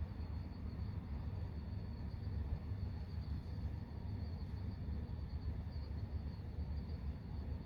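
Crickets chirping in a faint, high, pulsing trill over the low, steady rumble of cars driving.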